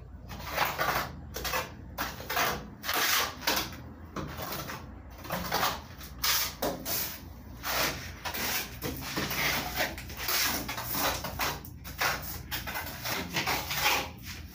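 Plastering trowel scraping wet cement plaster across a concrete-block wall in repeated strokes, about one or two a second.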